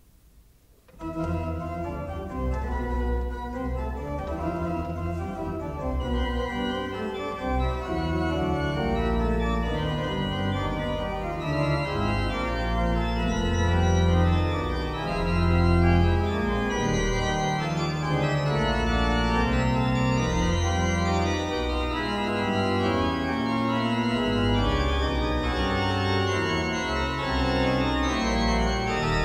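Pipe organ playing a fast fugal passage on full plein-jeu registration, with mixtures, reeds and 16-foot pedal principals. It comes in after a short silence about a second in, with deep sustained pedal notes under busy running lines in the manuals.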